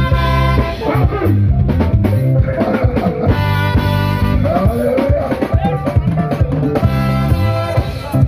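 Live band music: horns and saxophone playing over a drum kit and bass.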